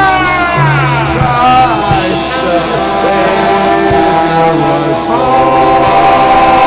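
Rock band playing a song, a voice singing long held notes over guitar and a bass line that changes notes every second or so.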